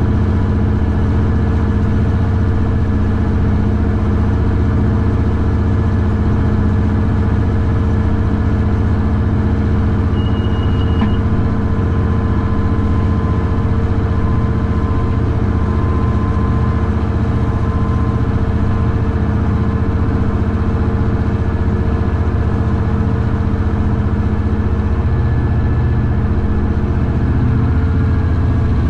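Class 66 diesel locomotive's two-stroke V12 engine running steadily as the train travels, heard from the cab.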